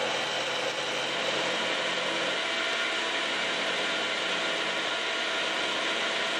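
Smithy milling machine running, its end mill taking light spring cuts along the side of a workpiece: a steady mechanical whir with faint gear whine. A low hum drops away about two and a half seconds in.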